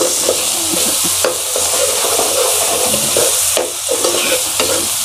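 Chopped onions and green chillies sizzling in oil in a kadai, with a steady hiss, while a metal ladle stirs and scrapes through them in repeated strokes as the onions soften.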